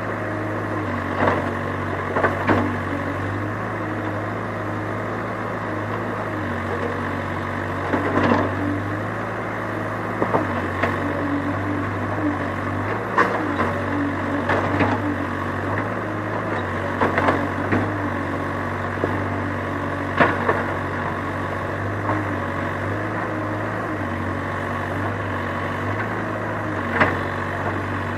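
Excavator engine running steadily, with a dozen or so sharp knocks and clatters scattered through it as the machine works.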